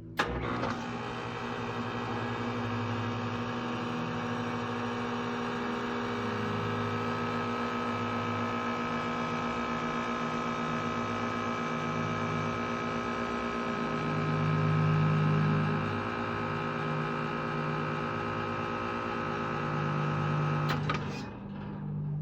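2016 ICP 2.5-ton heat pump outdoor unit running with its condenser fan motor seized: a steady electrical hum and drone while the fan blades stay still, risking a burnt-out compressor. It starts with a sharp click and cuts off abruptly shortly before the end.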